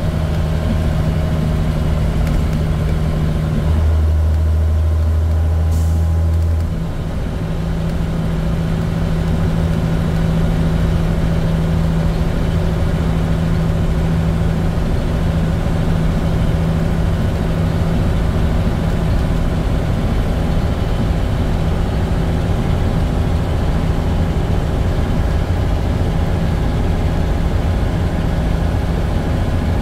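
Leyland Olympian double-decker bus's diesel engine heard from the upper deck while under way, a steady low drone. About four seconds in the note drops lower for a few seconds, then briefly falls away near seven seconds before settling back to its steady drone.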